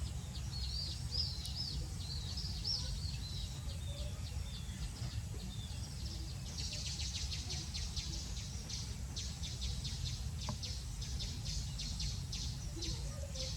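Small birds chirping in quick, high calls, over a steady low background noise.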